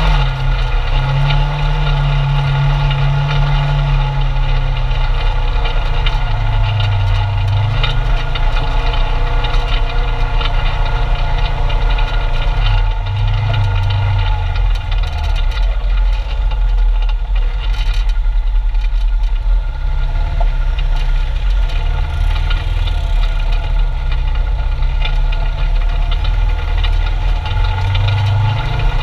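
Polaris RZR 900 side-by-side's 875cc twin-cylinder engine running at low trail speed, heard from inside the cab, its note rising and falling every few seconds as the throttle is worked.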